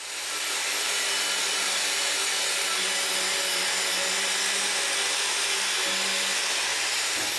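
Angle grinder running steadily against the forged steel of a vise part, grinding off its paint: a dense, even hiss over a steady motor hum.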